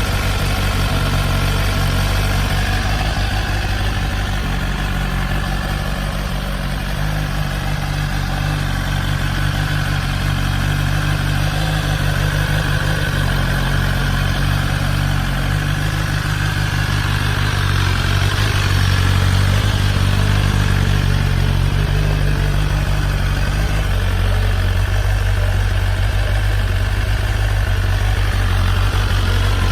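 An engine idling steadily, with a low even hum that gets slightly louder about two-thirds of the way through.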